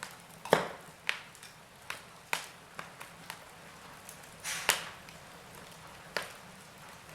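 Wood fire crackling in a fireplace: burning logs giving sharp, irregular pops, about eight of them, over a soft hiss. The loudest pop comes about half a second in and another strong one just before the five-second mark.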